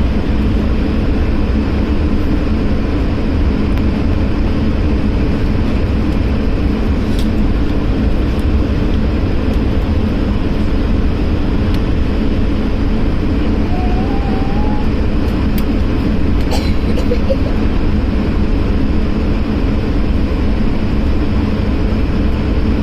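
Steady cabin noise inside an Airbus A220-300 airliner: a low, even rushing drone with a steady hum from its Pratt & Whitney PW1500G geared turbofan engines, and a few faint clicks.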